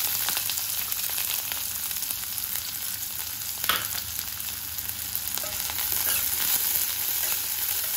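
Sliced onions sizzling steadily in hot oil in a kadhai. There is one sharp knock a little before the middle, and a steel spoon stirs the onions near the end.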